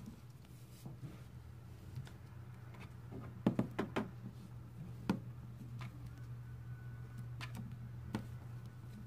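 Plastic slime eggs being handled and opened: scattered light clicks and knocks, with a quick run of four or five about three and a half seconds in, over a low steady hum.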